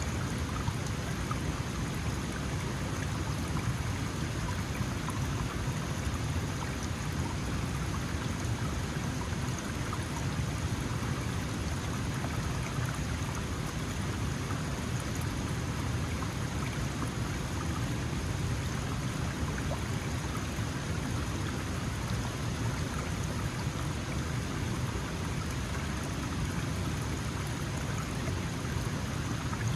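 Small mountain stream flowing: a steady, even rush of water that does not change.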